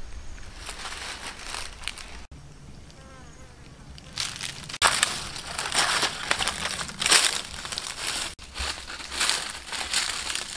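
Dry leaf litter crunching and rustling under bare feet in irregular bursts, heavier from about four seconds in.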